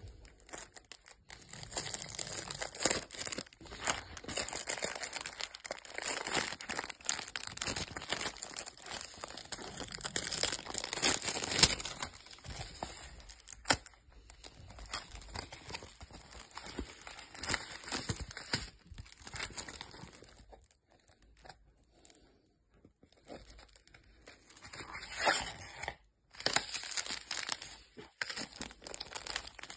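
Clear plastic packaging crinkling and crackling as a rolled diamond painting kit is handled, in irregular bursts with one sharp crackle about twelve seconds in, and a quieter stretch a little past two-thirds of the way.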